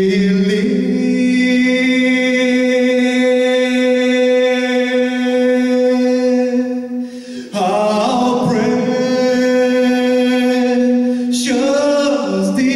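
Gospel singing with no instruments: a male soloist on a microphone with choir voices, holding long sustained notes. The chord changes about seven and a half seconds in and again near the end.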